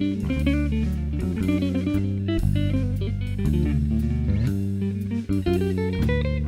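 Live blues band playing an instrumental passage: electric guitar lines over bass and drum kit.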